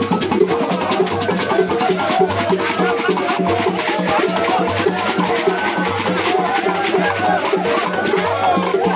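Traditional Igbo masquerade music: drums sounding a steady repeating beat, with rapid hard clicking wooden percussion and voices over it.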